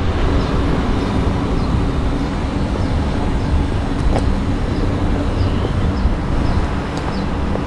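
Street traffic noise: a steady low rumble with a faint hum, and faint short high ticks recurring throughout.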